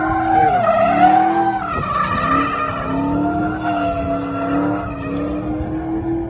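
Drift car sliding through a turn: its engine revs rise and fall while the tires squeal.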